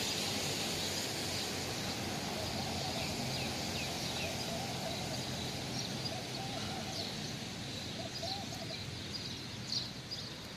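Steady outdoor background noise with a low hum underneath and faint, scattered bird chirps throughout.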